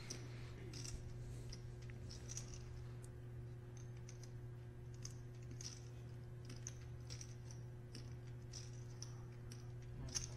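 Poker chips clicking together in a player's hands: many small, irregular clicks, faint, over a steady low hum.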